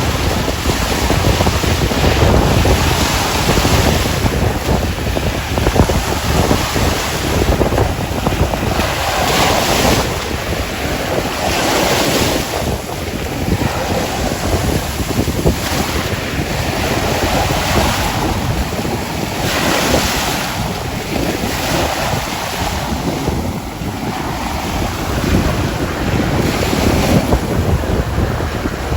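Sea waves washing onto the shore, surging every two to three seconds, with wind buffeting the microphone.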